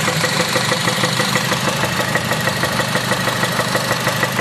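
2006 Honda Civic Si's K20 four-cylinder engine running steadily at idle with a rapid, even knock. The title calls it rod knock at 122k miles, while the onlookers think it may be spark knock.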